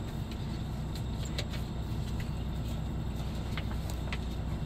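Truck engine idling with a steady low hum, with a few faint light clicks over it.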